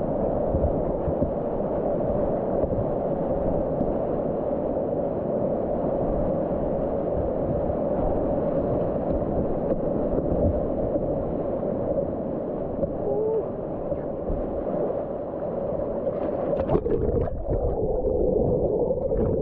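Steady rush of river rapids around a kayak, with a few short knocks near the end.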